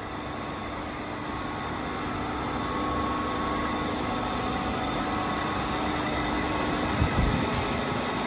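Centerless grinder and its motor-driven long-bar roller feeder running: a steady mechanical hum with faint whining tones, with two short low thumps about seven seconds in.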